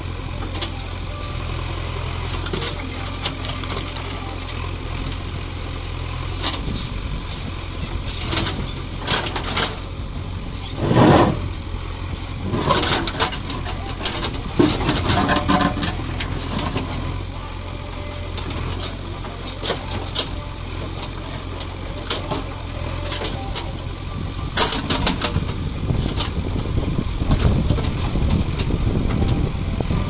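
JCB 3DX backhoe loader's diesel engine running steadily as the backhoe digs into stony soil, with scattered knocks and scrapes of the bucket on stones, one loud one about a third of the way in. The engine works harder near the end.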